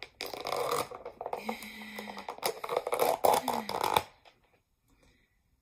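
Clear plastic lid being pried off a black plastic takeout container: a run of crackling, clicking and snapping plastic for about four seconds, then it stops once the lid comes free.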